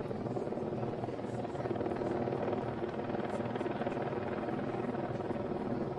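Helicopter running steadily, a continuous dense drone of rotor and engine noise that swells slightly about two seconds in.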